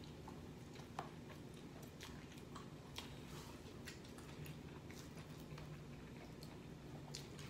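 Faint chewing and biting of pizza, with scattered small wet mouth clicks over a low steady hum.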